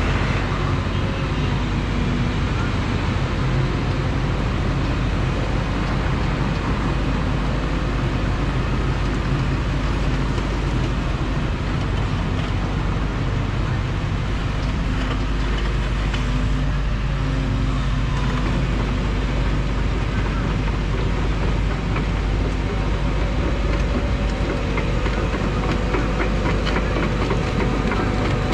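Tracked excavator's diesel engine running steadily under hydraulic load, with a dense grinding and rattling over it.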